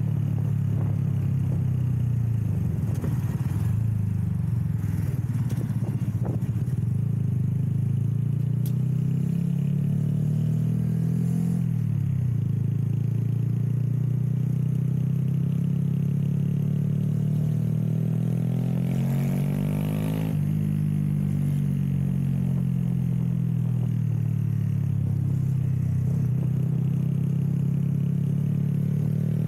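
Cammed Honda Grom's 125 cc single-cylinder engine running through an aftermarket 2 Brothers Racing exhaust while riding. The engine speed rises and falls, dropping and picking back up about twelve seconds in and again near twenty seconds.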